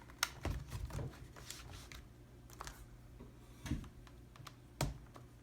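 Scattered light clicks and taps from handling a Samsung laptop and pressing its buttons, about seven in all and spread unevenly, over a faint low hum.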